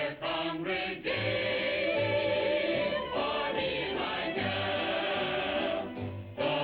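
Music: a choir singing with instrumental accompaniment, a low bass note pulsing about once a second.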